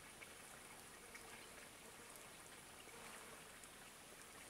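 Near silence: faint outdoor ambience with a few faint ticks.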